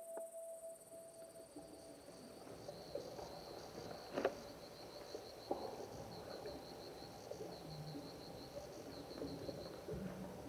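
High, pulsing chirps in short repeated runs, with soft knocks and shuffles of bare feet and bodies on a dance floor; one sharper thud about four seconds in.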